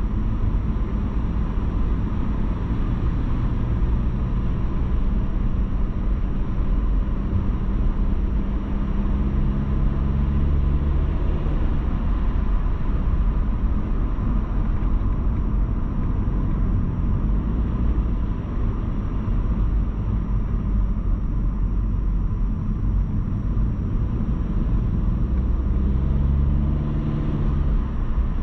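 A car driving: a steady low engine and road-noise rumble, with the engine note shifting in pitch about ten seconds in and again near the end.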